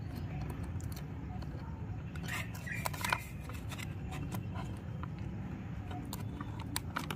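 Handling noise from a toy RC car's plastic remote and its packaging: scattered small clicks and rustles over a low steady hum.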